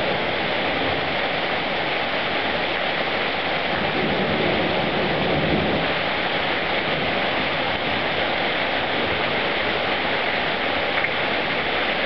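Heavy cloudburst rain pouring steadily onto a paved street during a thunderstorm.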